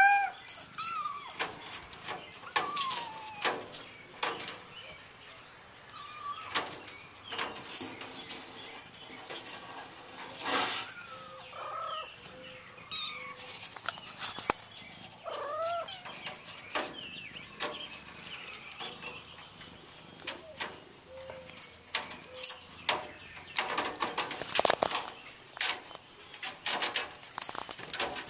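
Kittens clawing and climbing on a window screen, their claws scratching and rattling the mesh in quick irregular bursts, heaviest near the end. High, short kitten mews come several times in between.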